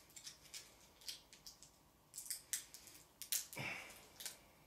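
Small sharp plastic clicks and crackles, irregularly spaced, from fingers working a handheld TV remote with a built-in keyboard. A louder, longer crinkle comes a little past three seconds in.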